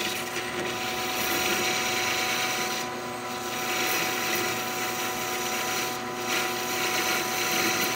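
Metal lathe running while a newly replaced parting tool cuts into an O1 tool steel bar. A steady drone and whine from the lathe, with the hiss of the cut, which drops out briefly twice.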